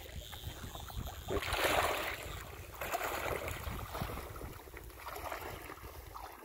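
Shallow water splashing as a person wades through it in a few strides, with wind rumbling on the microphone.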